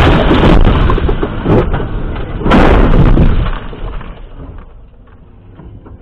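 Car crash heard from inside the car: a loud crunching, scraping impact, a second heavy impact about two and a half seconds in, then the noise dies down.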